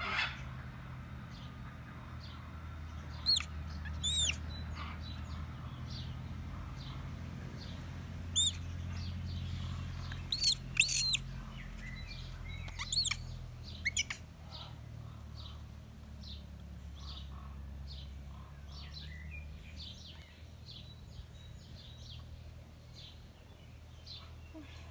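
A young macaque screaming in a tantrum: loud, high, arching shrieks that come in ones and pairs through the first half, clustered most thickly around ten to fourteen seconds in. They are heard over a steady low hum.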